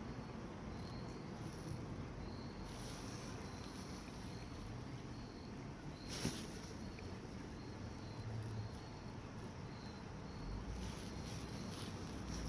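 Cricket chirping, short high chirps repeating about once a second over a steady background hiss, with one sharp click about six seconds in.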